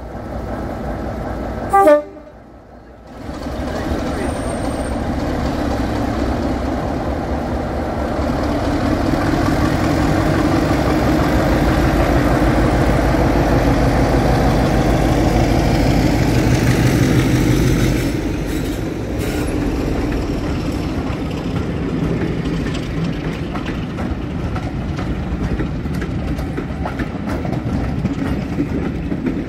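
BR Class 33 diesel locomotive sounds a short horn toot, then its Sulzer eight-cylinder engine runs under power as it pulls its train past. The engine sound eases a little over halfway through as the coaches roll by.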